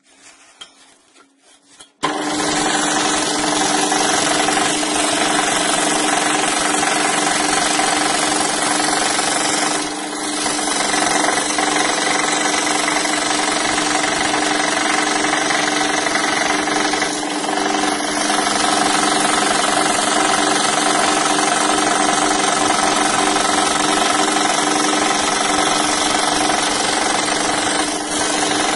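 Scroll saw running and cutting 10 mm birch plywood: a steady, loud buzz of the reciprocating blade and motor hum, coming in suddenly about two seconds in and dipping briefly twice as the cut goes on.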